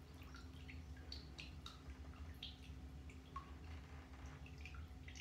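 Faint, irregular drips and small plinks of water in a bathtub, a few each second at varying pitches.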